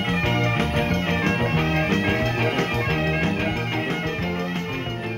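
Instrumental background music led by a plucked guitar over a shifting bass line.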